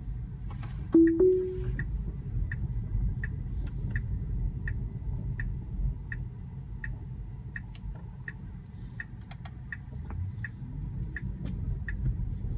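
Tesla Model 3 cabin sounds: about a second in, a two-note chime rising in pitch, the Autopilot engagement chime. Then the turn signal ticks steadily, about three ticks every two seconds, over low road rumble.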